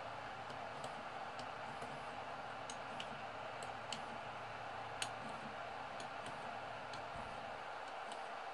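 Tronxy X3A 3D printer running with a steady fan whirr, with scattered light clicks at irregular intervals while its X axis is jogged from the control menu.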